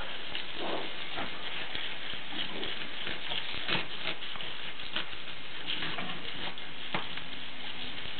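Water from a garden hose spraying over a horse's legs and splashing on the wet ground: a steady patter, with a few brief sharper splashes or knocks.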